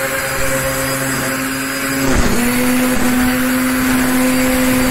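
Black & Decker GrassHog 800 W corded electric string trimmer running at full speed, cutting overgrown grass. Its steady motor whine drops a little in pitch about two seconds in and stays lower.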